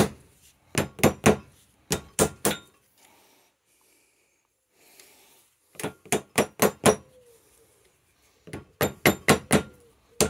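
A hammer tapping a new fork seal down into a motorcycle fork leg, in quick runs of four to six sharp taps with a pause of about three seconds midway. Near the end the taps give a hard clack clack, the sign that the seal has bottomed out in its seat.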